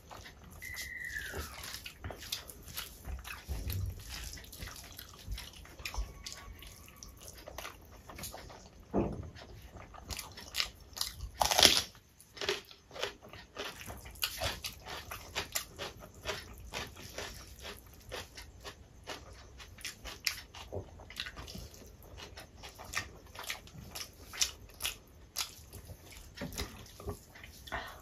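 Fingers kneading and squeezing rice and curry on a plate: a dense run of small wet, sticky clicks and squelches, with one louder burst about twelve seconds in. Near the end, a handful of curried rice is put into the mouth.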